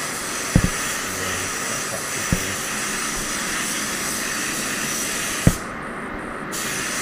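Gravity-feed HVLP spray gun hissing steadily as it atomises top coat at about 2 bar, with three sharp knocks along the way; after the last knock, about five and a half seconds in, the gun's hiss stops for about a second as the trigger is let off, leaving a steadier lower rush of air, then starts again.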